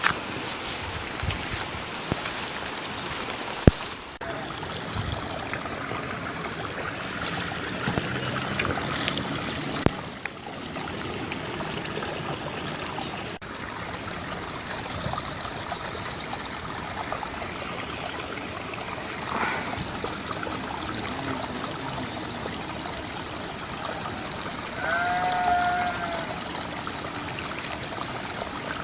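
Water trickling and running steadily in a rice paddy, with scattered small clicks. Near the end comes a short pitched call.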